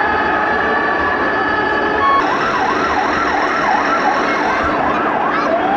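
Electronic sirens from radio-controlled model emergency vehicles, played through their small onboard speakers: held steady tones at first, then from about two seconds in a siren sweeping quickly up and down, nearly twice a second, and near the end a slower wail beginning to rise.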